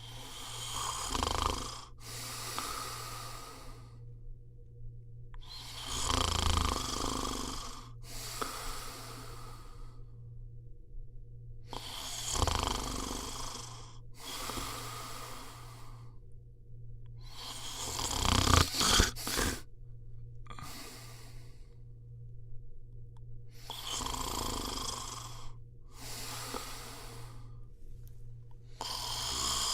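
A person snoring steadily in deep sleep, one snore about every six seconds, each a rumbling breath followed by a softer breath, the loudest about two-thirds of the way through.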